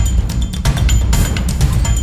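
Background music with a driving beat of drums and deep bass.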